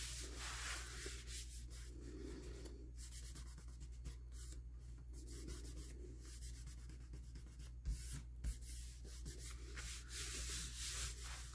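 Faint rubbing and rustling of paper being smoothed down by hand onto a freshly glued journal cover, with a couple of light taps about eight seconds in.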